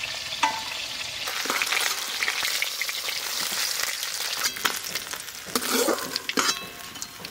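Hot mustard oil sizzling in a wok after frying snakehead fish, with a metal spatula scraping and clicking against the pan as the fried pieces are lifted out. The sizzle swells about a second in.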